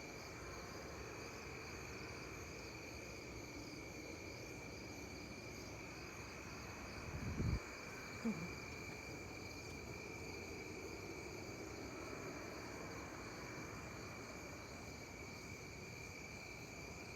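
Steady rumbling roar filling the night air, like a distant highway or a jet, with crickets or other insects trilling in steady high tones. A brief louder low sound comes about seven seconds in and again a second later.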